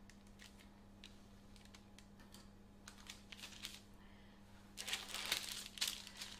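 Greaseproof baking paper rustling and crinkling as it is handled on a metal baking tray, with small light clicks and taps; the rustling grows louder near the end.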